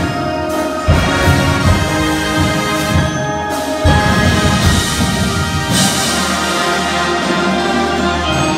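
Marching band playing: sustained brass chords over marimbas and percussion, with loud ensemble hits about one and four seconds in.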